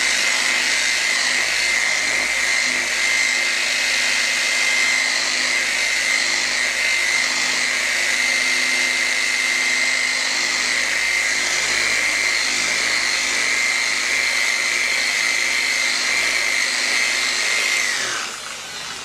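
Electric random-orbital polisher with a white waffle foam pad running steadily with a high whine as it buffs fine polish into painted motorcycle bodywork, the final polishing stage. Near the end the whine drops in pitch as the polisher winds down.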